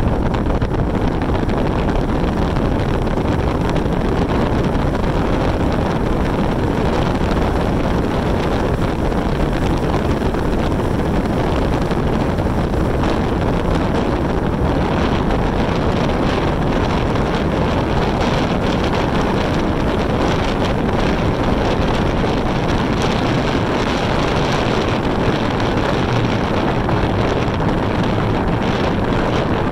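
Steady wind noise buffeting the microphone, mixed with the road noise of a moving vehicle, with no let-up.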